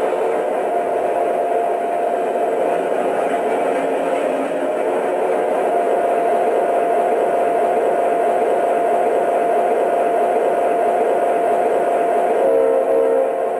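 Diesel engine sound from a model locomotive's MTH Protosound 2 sound board, idling steadily through its small speaker. A short pitched sound joins near the end.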